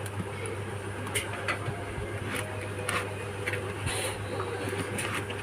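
Scattered small clicks and taps of tools and plastic parts being handled during phone disassembly, over a steady low hum.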